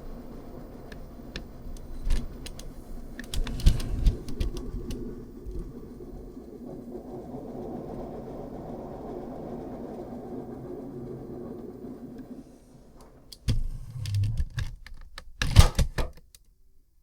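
Washing machine running a tub-clean cycle: a steady churning hum with scattered clicks that stops about twelve seconds in. A few sharp knocks and clicks follow near the end.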